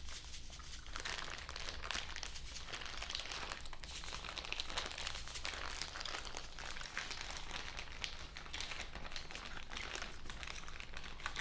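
Steady crinkling and crackling of something being handled, a dense run of fine crisp ticks.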